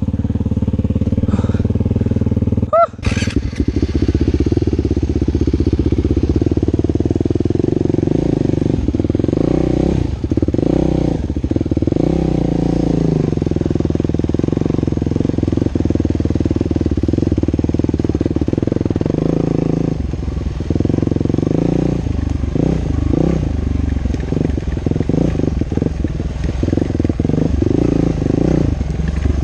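Husqvarna TE 449's single-cylinder four-stroke dirt bike engine idling, with a brief sharp sound about three seconds in, then pulling away along a dirt trail with the engine note rising and falling as the throttle opens and closes.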